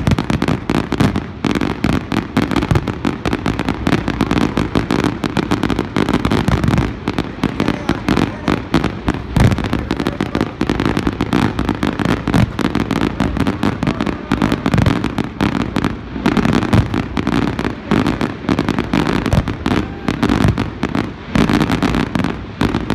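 Aerial fireworks bursting in a dense, unbroken barrage: rapid overlapping bangs, several a second, with no let-up.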